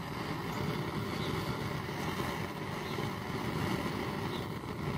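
Handheld gas torch burning steadily as its flame heats a fluxed copper pipe joint before solder is applied.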